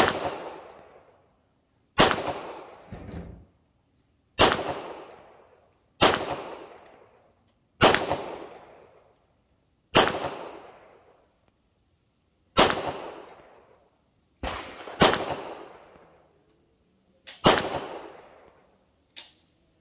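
Slow aimed fire from a 9mm pistol: about ten sharp shots, roughly one every two seconds, each trailing off in echo over about a second, with two fainter pops in between.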